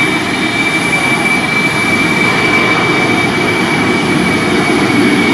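Jet airliner engines running loud and steady, a high whine held over a broad rumbling noise.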